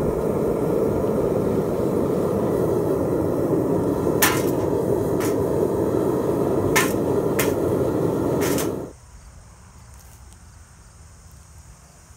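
Gas-fired homemade foundry furnace running with a steady burner noise, while a metal skimming rod knocks sharply against the crucible and a metal pan about five times as dross is cleared from the molten copper-aluminum melt. The burner noise cuts off abruptly about three-quarters of the way through, leaving quiet outdoor background.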